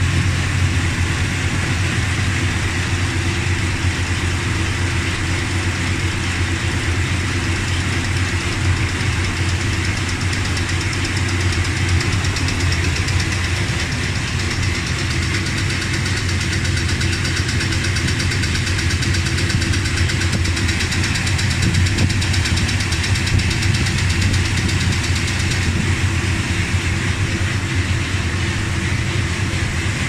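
Dodge Ramcharger's V8 engine idling steadily, with no valvetrain tick now that new pushrods and rocker shafts are fitted.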